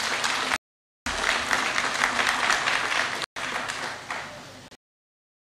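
Crowd applauding, a dense patter of many hands clapping. It cuts out abruptly to dead silence twice, then fades and cuts off about a second before the end.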